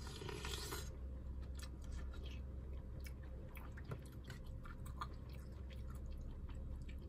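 A plastic spoon stirring and scraping in a plastic takeout bowl of sundae gukbap, making many small, irregular clicks, with a short burst of noise at the start.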